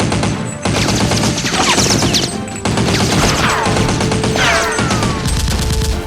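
Rapid bursts of gunfire sound effects, dubbed over a Nerf blaster fight, with brief falling whistles among the shots, over background music. The firing breaks off briefly twice.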